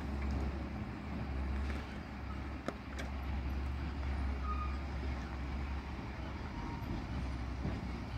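Diesel lorry engine running at a low, steady rumble, with two sharp clicks about three seconds in.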